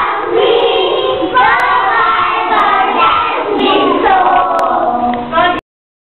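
A group of young children singing together, with a few hand claps. The singing stops abruptly shortly before the end.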